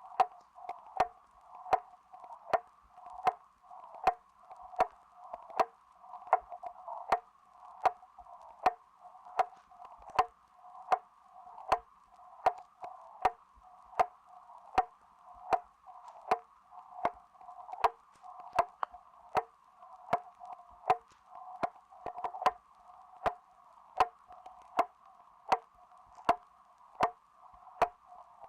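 Grandfather clock ticking: steady, evenly paced ticks, about one and a half a second, each with a short ring.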